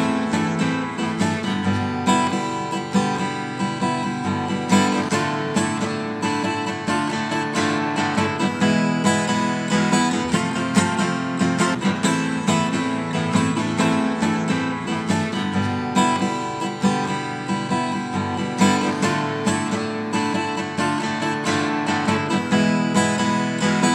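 Acoustic guitar strummed in a steady rhythm, the instrumental introduction before the vocals come in.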